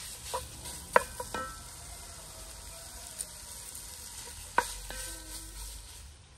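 Cubed fat sizzling in a pan as it starts to render, stirred with a wooden spoon. The spoon knocks against the pan a few times about a second in, and once more about four and a half seconds in.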